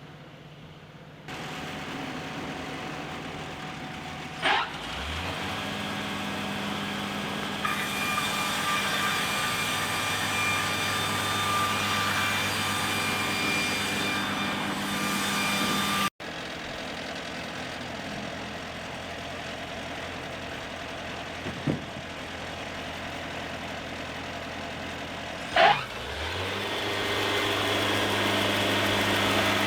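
Wood-Mizer portable sawmill engine running steadily and throttling up twice, each time with a quick rising sweep into a louder steady run.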